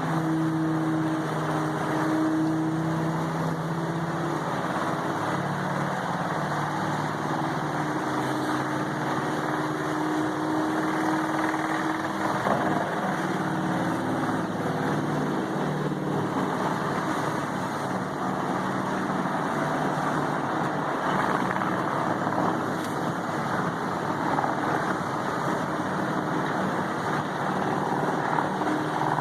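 Large diesel engine of a Vermeer HG6800TX horizontal wood grinder running steadily under load, its hum mixed with a dense rush of grinding noise as logs are fed in.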